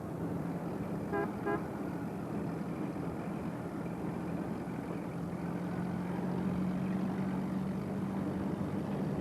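A car horn gives two short toots about a second in, over a steady rush of wind and a low, steady drone.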